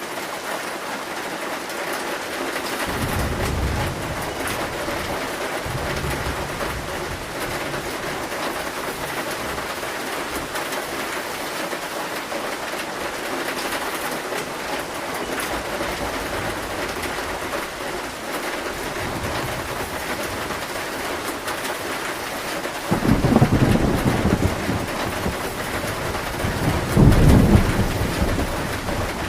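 Heavy rain drumming on a zinc (corrugated metal) roof in a steady hiss, with thunder rumbling low a few seconds in and two louder rolls of thunder near the end.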